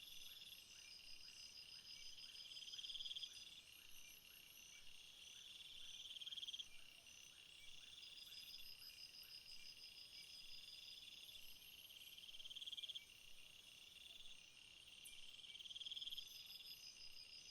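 Faint chorus of night insects: several overlapping high-pitched trills, one swelling and fading about every three seconds, with a run of short rising chirps, roughly two a second, through the first half.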